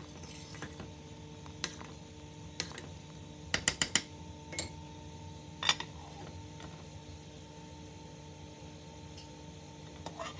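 A metal spoon stirs thick split pea purée in a stainless steel pot, with scattered sharp metal clicks, including a quick run of four about halfway through. A little later comes a clank as the stainless steel lid is set on the pot. A steady low hum runs underneath.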